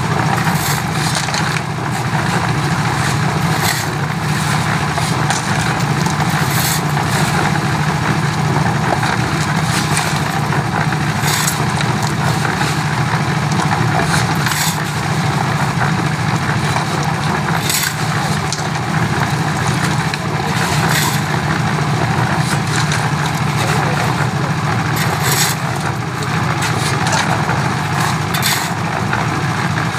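Portable concrete mixer running steadily: its small engine drives the turning drum as gravel and sand tumble inside. Short scraping clatters come every few seconds as shovelfuls of gravel go in.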